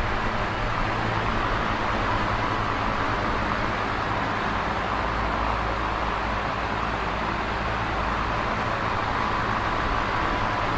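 Electric fan running steadily: an even rush of moving air with a constant low hum underneath.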